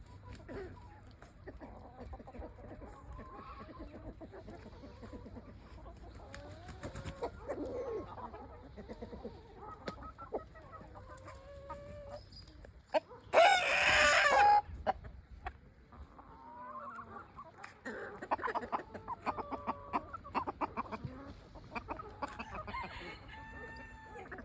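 Free-range chickens clucking and calling throughout, with a rooster crowing once, loudly, a little past halfway through.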